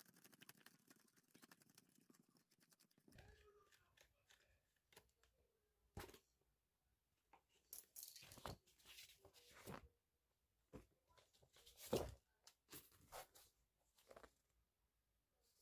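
Paper pages being torn out of a spiral notebook's wire binding: faint rustling at first, then a series of short rips and crinkles, the sharpest and loudest about three-quarters of the way through.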